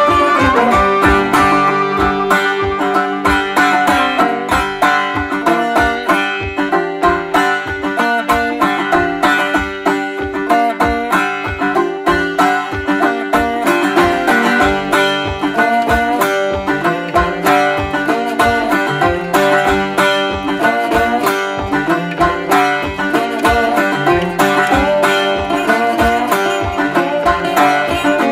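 Background music: an upbeat plucked-string tune with a steady beat.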